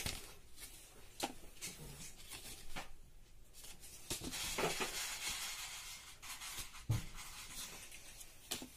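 Embossed paper gift envelopes being handled: papery rustling and sliding as they are lifted, flipped and laid on a stack, with a few light taps. There is a longer sliding rustle about halfway through.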